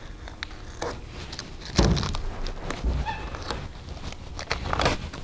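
Blue painter's tape being peeled off a fiberglass centerboard: scattered crackles and ticks as it pulls away, with a low thump about two seconds in and another near the end.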